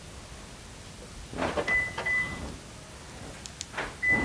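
Light knocks and clicks at the shut tailgate of a Toyota Rush. Two short high beeps come about two seconds in, and another short beep comes near the end.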